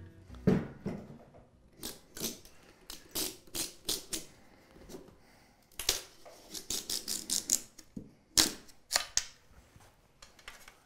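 A length of bamboo cane being split in half by hand along its grain: a string of sharp, irregular cracks and snaps as the fibres part, coming thickest about six to seven and a half seconds in.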